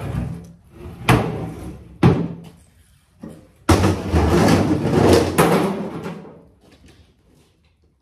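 Metal wheelbarrow banging against a metal trailer, two sharp clanks, then from just under four seconds in a rough rush of scraping and sliding as a load of wet manure is tipped out of the barrow into the trailer, with another clank in the middle of it.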